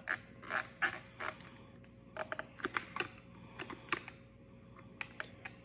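Small screwdriver and fingers working at a plastic fuel pump module, prying at the fuel pressure regulator: a string of light, irregular clicks and scrapes of metal on plastic.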